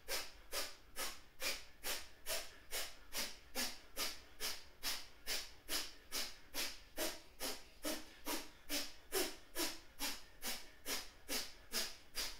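Rapid, forceful breaths through the nose in a yogic pranayama exercise: a steady train of sharp hissing breaths, about three a second.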